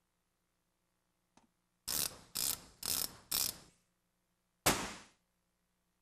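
Mechanical clacks: four sharp hits about half a second apart, each ringing briefly, then a single louder hit about a second later.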